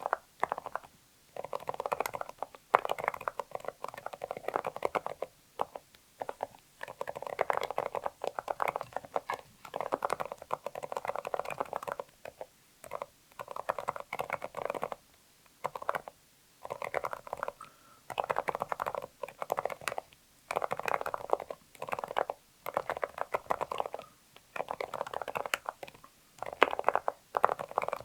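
Typing on a mechanical keyboard with silent linear switches (Kailh Deep Sea Silent Box Islet) and PBT keycaps on an aluminium plate: soft, muted keystrokes in quick runs of a second or two with short pauses between.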